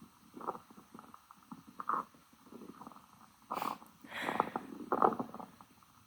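Stomach growling: a run of irregular gurgles and rumbles, with the loudest cluster a little past halfway.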